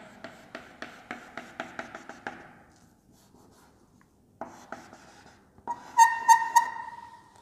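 Chalk tapping on a blackboard while a dashed line is drawn: quick taps about four or five a second for two seconds, then after a pause more taps and a high, pulsing chalk squeak about six seconds in.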